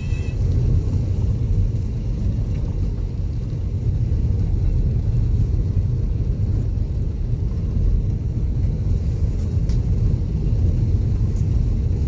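Steady low rumble of a vehicle driving on a gravel road, heard from inside the cabin: engine and tyre noise.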